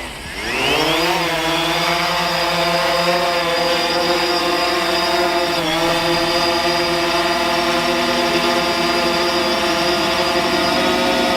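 DJI Phantom quadcopter's motors and propellers spinning up for take-off, the whine rising in pitch over the first second, then holding a steady hovering hum with a brief dip in pitch about halfway through.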